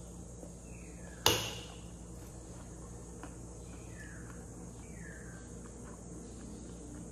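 A single sharp clink of a metal spoon striking a plastic food container about a second in, with a short ring after it, over a low steady room hum. A few faint, short falling squeaks come and go.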